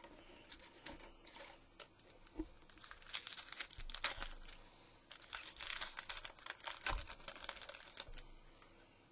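Plastic wrapper of an Upper Deck SP football card pack being torn open and crinkled by hand: irregular crackling, sparse at first and thickest from about three seconds in until near the end.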